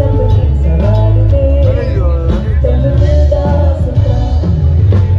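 Live band playing loudly through a big outdoor PA: a singer's voice carrying the melody over drums and a heavy bass line.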